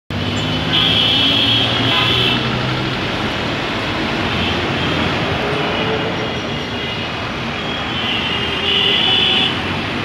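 Dense road traffic of buses, cars and auto-rickshaws running in a steady rumble, with vehicle horns honking: a long honk about a second in, a shorter one just after, fainter ones in between, and another loud honk near the end.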